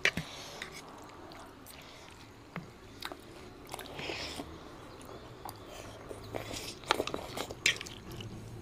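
Close-miked eating sounds of a noodle mukbang: chewing and mouth noises of eating thukpa noodles, with scattered light clicks of forks against the bowls.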